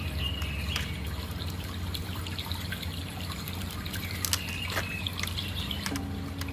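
Steady trickling water over a low hum, with brief high tones about four seconds in and scattered light clicks.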